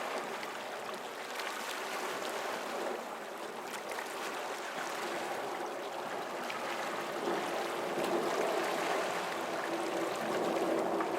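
Water lapping and sloshing against rocks, a continuous splashing wash with small trickles and clicks. A steady low hum sits underneath and grows stronger in the second half.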